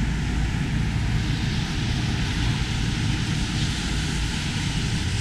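Steady city street traffic noise: a low rumble of engines and an even hiss of tyres on a wet road.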